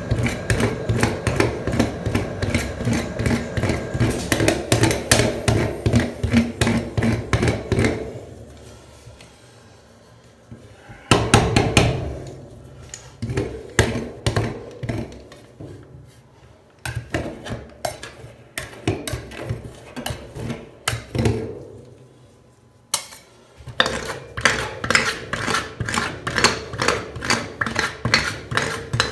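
Metal spatula chopping and tapping on a frozen steel rolled-ice-cream pan through a thin sheet of chocolate ice cream, sharp metal clacks at about three to four a second. The strokes thin out to scattered softer taps for a few seconds about a third of the way in, and again for a moment near three-quarters of the way in.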